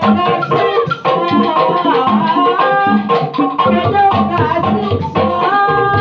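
Sundanese calung music: bamboo calung tubes struck in a quick, busy pattern over a hand-played kendang drum, with a man singing into a microphone.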